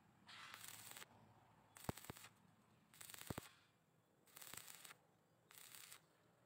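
Stick-welding arc crackling and hissing in five short bursts about a second apart, with a few sharp pops, as the electrode is swung up and back along a vertical-up fillet weld on thin steel so as not to burn through.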